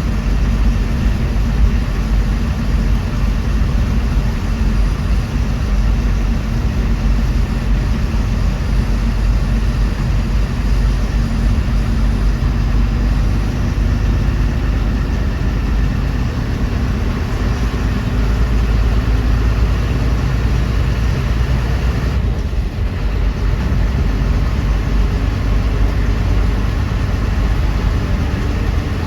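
Bus engine rumble and road noise, steady and low-pitched, heard from inside the moving bus.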